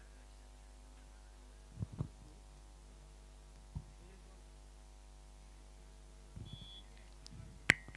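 Steady low electrical hum on the broadcast audio, with a few faint knocks and one sharp click near the end.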